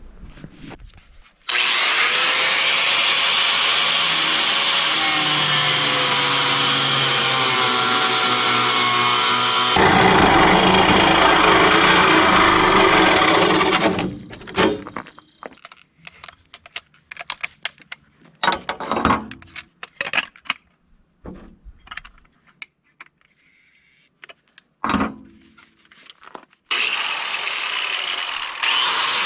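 Angle grinder running against metal for about twelve seconds, its pitch wavering as it bites, then stopping. A stretch of scattered clanks and knocks follows, and the grinder starts up again near the end.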